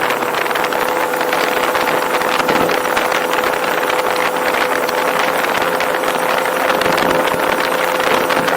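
Boat engine running steadily under way: a constant hum with a dense rushing noise over it.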